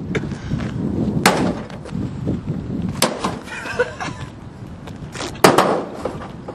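A microwave oven being smashed: three heavy blows strike its metal casing about every two seconds, the last the loudest.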